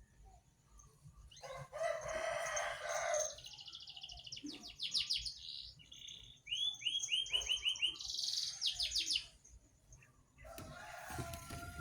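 A songbird singing: a harsh, rasping call, then rapid high trills and runs of short falling notes, with another harsh call near the end.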